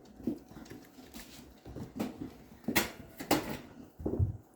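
Puppies playing: a scatter of short knocks, taps and scuffles, about half a dozen, with a slightly heavier knock near the end.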